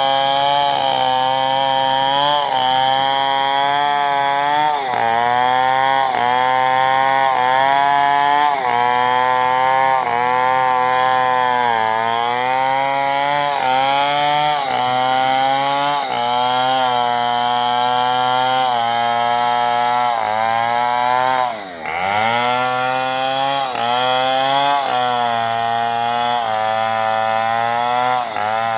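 Two-stroke chainsaw running at high revs while cutting wood, its pitch sagging and recovering every second or two as the chain loads in the cut. About twenty-two seconds in it bogs down sharply and then picks back up.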